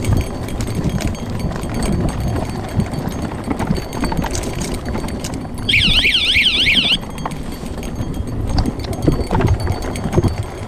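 Mountain bike riding over a rocky dirt trail: a steady rumble of the tyres with irregular knocks and rattles from the bike. About halfway through, a high warbling tone rises and falls rapidly for about a second.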